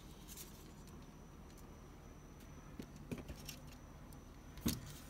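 Faint clicks and light knocks of a plastic Gundam model kit being handled and turned in the hand, with one louder knock near the end.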